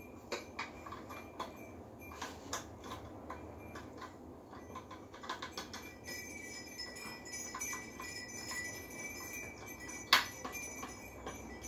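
Small metallic clicks and clinks as screws and blade hardware are handled and a blade is screwed onto a ceiling fan's motor hub, with one sharp click about ten seconds in.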